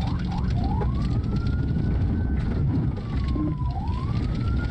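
Police cruiser siren wailing in slow rising-and-falling sweeps, one about every three seconds, over a heavy low rumble of engine and road noise heard from inside the moving cruiser.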